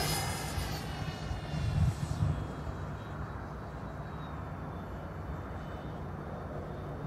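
Whine of an RC FlyFly Mirage electric ducted-fan jet fading away after a fast pass, its pitch dropping over the first second. After that only a faint, steady distant whine remains as the jet flies off, with a low rumble underneath.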